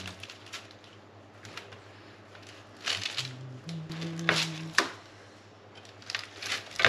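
Metal bench scraper cutting and cracking a crisp sheet of baked marzipan biscuit on a parchment-lined metal baking tray, scraping and crunching. Sharp cracks come in clusters about three seconds in, around four and a half seconds, and again near the end.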